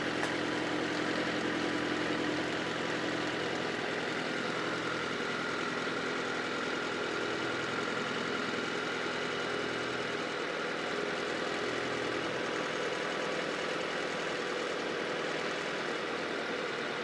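Honda CR-V's four-cylinder engine idling steadily, its hum shifting slightly a couple of times, while it runs with freshly added coolant after a heater hose replacement.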